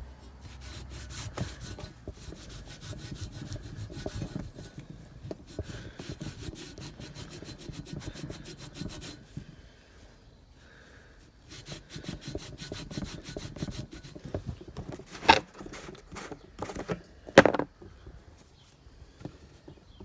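A rag scrubbing rapidly back and forth along a painted steel bicycle frame tube, wiping off old sticker glue, with a short pause about halfway. Two sharp knocks come near the end, about two seconds apart.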